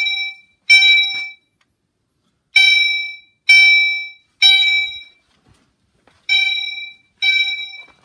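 Gentex Commander 3 fire alarm horn sounding in the temporal-three evacuation pattern: groups of three short, shrill blasts about a second apart, with a pause between groups. It is the fire alarm system in alarm after a pull station was pulled.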